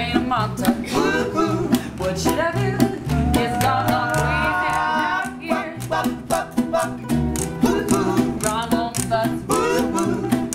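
Ukulele band playing live: strummed ukuleles over an upright double bass and percussion, with voices singing.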